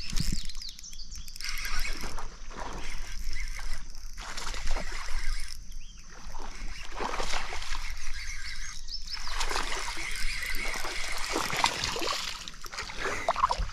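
Water splashing and sloshing in irregular bursts as a hooked largemouth bass thrashes at the surface while being fought and reeled in.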